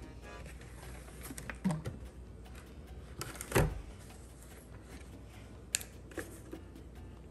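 Kitchen utensils and cookware being handled: a few scattered knocks and clicks, the loudest a dull thud about three and a half seconds in.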